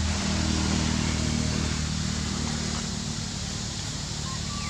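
Steady low hum of an idling engine running nearby, over a background hiss, easing off slightly after about three seconds. A faint short high-pitched call sounds near the end.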